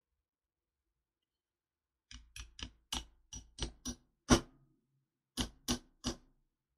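A run of about a dozen short, sharp clicks at uneven spacing, starting about two seconds in. The loudest comes just past the middle.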